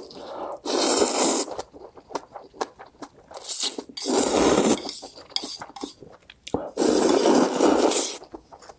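Spicy instant ramen noodles slurped in several long, loud slurps, each about a second long, with wet chewing clicks between them.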